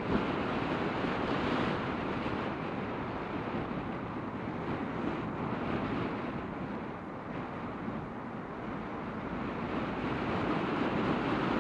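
Road traffic noise: a steady rush of tyres and wind, louder near the start and end and easing off in the middle.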